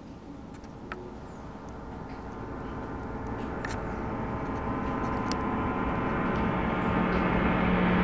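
A layered, droning soundtrack swell rising steadily louder throughout, with a strong low tone entering near the end: a horror-film tension build-up. A few faint clicks sit under it.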